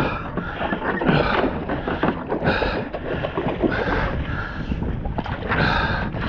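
Wind buffeting the microphone over irregular sloshing and splashing noises that swell and fall every second or so.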